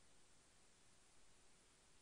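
Near silence: the stopped web audio stream gives only faint hiss.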